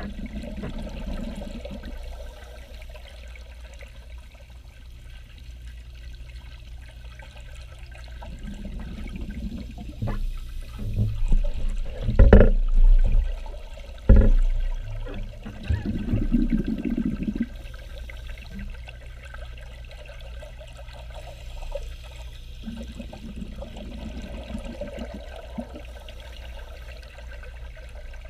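Scuba breathing heard underwater: a steady low hum with the rush of exhaled bubbles from a regulator every few seconds, loudest about halfway through.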